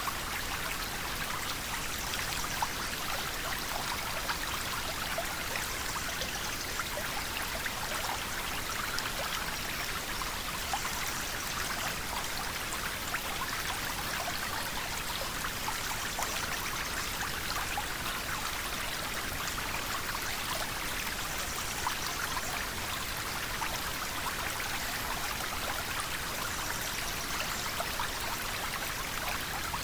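River water flowing steadily, a continuous rushing with fine splashing and trickling over it.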